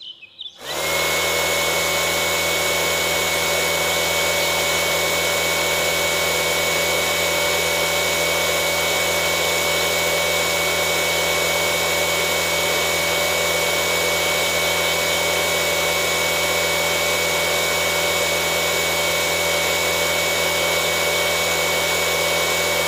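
A small electric motor, such as a hobby DC motor or a mini drill, running at a steady speed with a steady high-pitched whine. It starts about a second in and holds without change.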